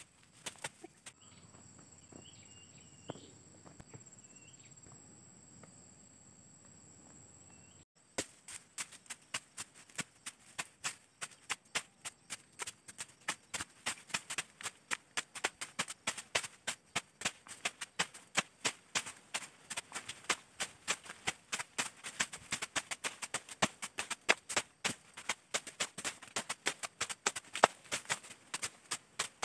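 Machete slashing through ferns and brush, sharp cuts repeating a few times a second, starting about eight seconds in. Before that, a steady high insect hum with a few short chirps.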